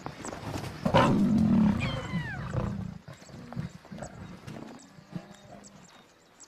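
Lions and hyenas snarling over a carcass. About a second in comes a loud snarling growl lasting over a second, with high-pitched cries that fall in pitch just before the growl ends. Quieter growls and scuffling follow.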